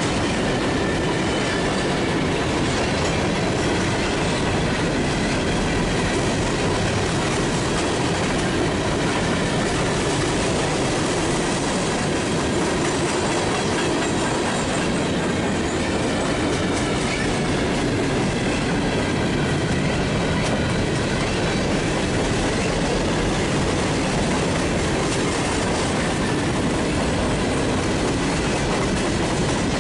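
Coal hopper cars of a freight train rolling past close by: a steady rumble and clatter of steel wheels on the rails, with a faint thin squeal from the wheels.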